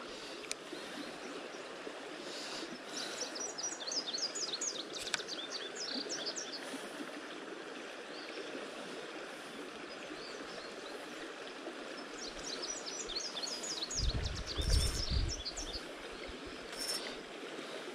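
Creek water running over rocks, with a songbird singing two runs of quick, high chirping notes. A brief low rumble comes near the end.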